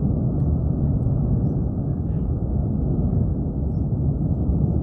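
Steady low roar of the erupting Tajogaite volcano as its vent fountains lava, a continuous jet-like rumble without breaks.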